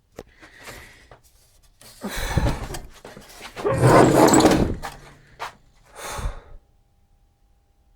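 Metal parts of an old oscilloscope chassis being worked loose, scraping and rattling in three bursts, the longest and loudest about four seconds in.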